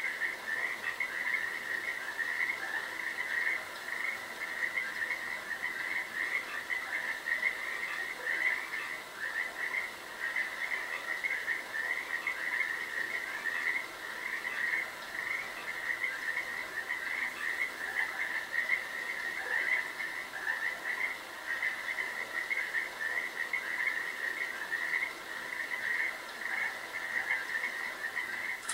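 Night chorus of frogs: many high calls overlapping into a steady, pulsing chorus.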